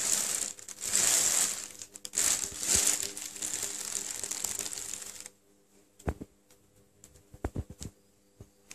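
Thin plastic carrier bag rustling and crinkling as a cat shifts around inside it, stopping abruptly about five seconds in. A few short clicks follow near the end.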